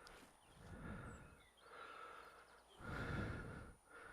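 A man breathing close to the microphone, faint and rhythmic: alternating in and out breaths about every second.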